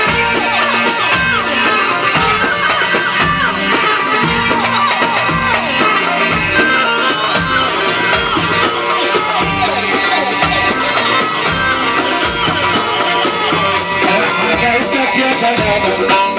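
Live Egyptian folk-style wedding band playing an instrumental passage: a melodic lead with many sliding pitches over a steady drum beat and a regular tambourine-like jingle.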